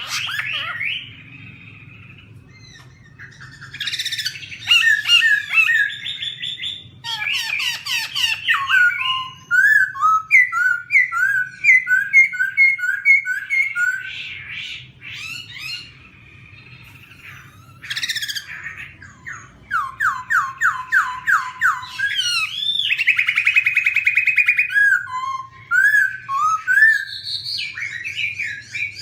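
Black-throated laughingthrush singing: loud phrases of rapid repeated notes that change from phrase to phrase, broken by pauses of a second or two.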